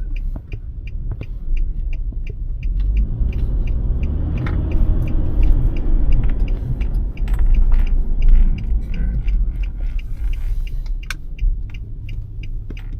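Car engine and road rumble heard from inside the cabin while driving. The engine note builds about three seconds in and eases off again later. A regular ticking, about two a second, runs throughout.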